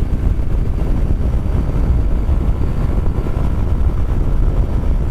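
Kymco Xciting 400i maxi scooter riding at highway speed, its engine under a steady, loud rumble of wind on the microphone.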